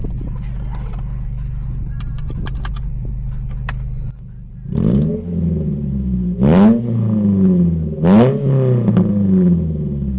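Ford Fiesta ST150's 2.0-litre four-cylinder running through its modified exhaust, heard from the rear. It idles steadily with a few clicks and knocks, then about halfway through it revs up a little and settles, and then gets two sharp throttle blips that climb quickly and fall back.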